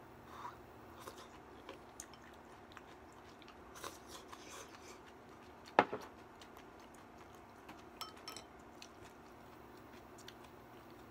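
Faint chewing while eating kimchi hot pot from a ceramic bowl, with scattered small clicks of chopsticks against the bowl. One sharp knock just before six seconds in as the bowl is set down on the table.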